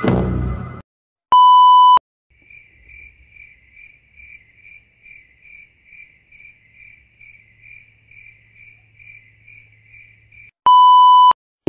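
Music cuts off within the first second, then a loud electronic beep tone sounds briefly, once about a second and a half in and again near the end. Between the two beeps, crickets chirp faintly and steadily, about three chirps a second, over a low hum: the stock 'crickets' effect for an awkward silence.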